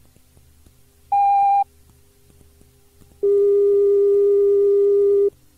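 Two electronic beep tones played from an old announcement cassette tape: a short higher beep about a second in, then a longer, lower tone of about two seconds, with faint hum and ticks of the tape between them.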